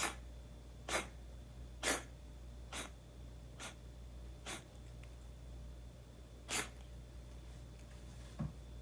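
A domestic cat in a sneezing fit: seven short, sharp sneezes, the first five about a second apart, then a pause before the last. A soft low thump comes near the end.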